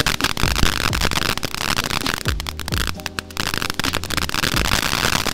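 Consumer firework fountain ('Smile') spraying sparks with a dense, rapid crackle, over background music with a steady beat.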